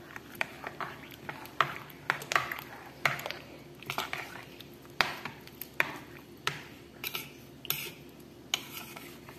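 A utensil stirring wet bulgur wheat in a bowl, scraping and clinking against the bowl's sides in irregular strokes about once or twice a second.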